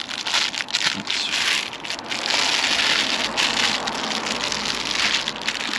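Sheet of reflective foil bubble insulation crinkling and rustling as it is handled and pressed against a car window frame, a dense irregular crackle.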